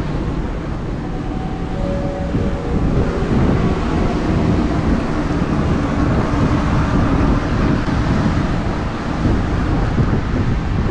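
Passing train on the railway tracks: a loud, steady low rumble with a faint motor whine.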